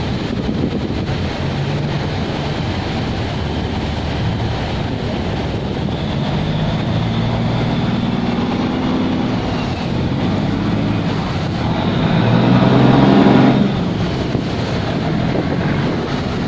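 Cargo barge's diesel engine running, with churning water and propeller wash. The engine note grows and is loudest about twelve to thirteen seconds in, as the wheelhouse and stern pass close, then drops back.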